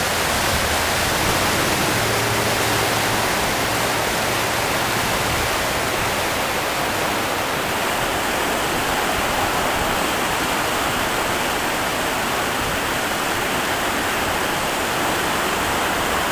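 The flooded Kennebec River rushing by: a loud, steady roar of fast-moving high water.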